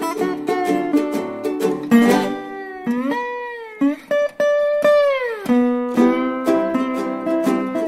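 Music on plucked string instruments, with a few notes sliding and bending downward around the middle.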